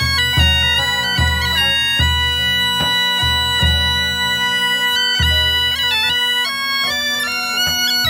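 Bagpipe playing a melody over a steady drone, with hand-held frame drums beating low thuds a little faster than once a second.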